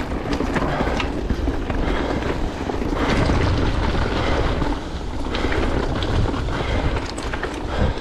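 Mountain bike riding down a stony trail: tyres crunching and clattering over loose rocks and gravel with a steady low rumble, rougher and louder for a couple of seconds from about three seconds in.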